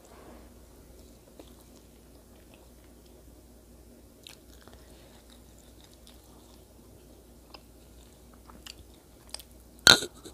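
A person chewing a piece of sushi quietly, with faint scattered mouth clicks. Near the end comes a sharp, loud clack, followed by a few smaller knocks.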